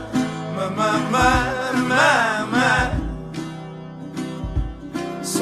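Background music: a man singing over acoustic guitar, his voice strongest and wavering in pitch through the middle.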